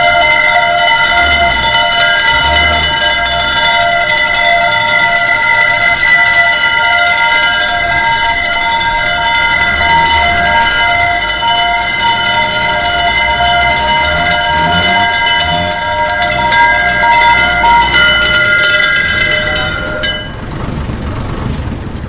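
A fire engine's bell ringing continuously over the low rumble of the truck's engine. The bell stops about 18 to 20 seconds in, and the engine fades away at the end as the truck passes.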